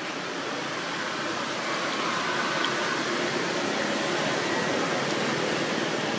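Steady rushing hiss that gets a little louder over the first two seconds.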